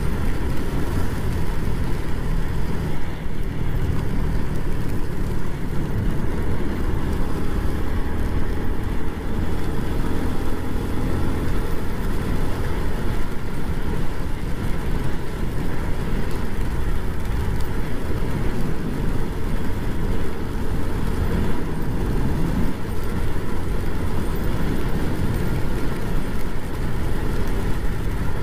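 Motorcycle running at steady road speed in the rain, under a constant rush of wind and wet-road tyre noise.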